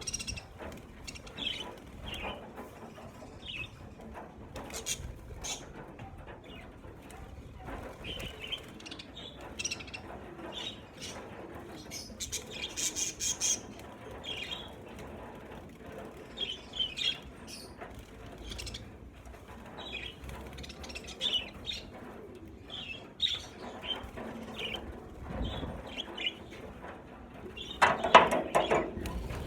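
A flock of budgerigars chirping with short, scattered calls, along with wings flapping. A louder burst of noise comes near the end.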